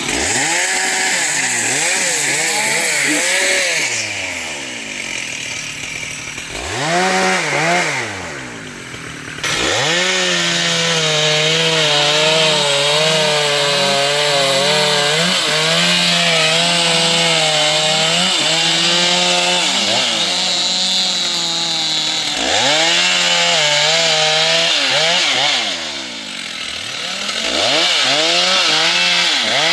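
Two-stroke Stihl chainsaw revving up and down repeatedly. From about ten seconds in it holds a steadier, lower pitch for around ten seconds, as when the chain is loaded cutting wood, then goes back to rising and falling revs.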